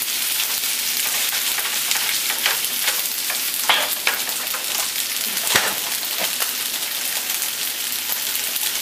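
Wide rice noodles sizzling in a hot nonstick frying pan, just dressed with dark soy sauce, with a steady hiss. A spatula stirs them, knocking sharply against the pan a few times.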